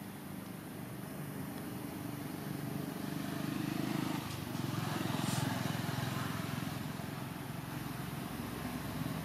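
A steady low engine hum, as of a motorbike idling, swelling a little in the middle, with a brief hiss about five seconds in.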